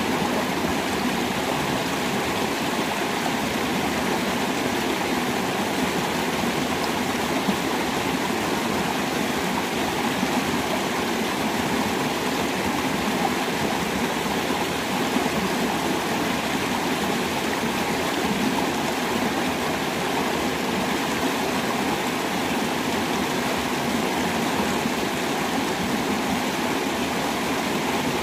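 Steady rush of flowing water, where a small inflow churns into the creek, with no break or change.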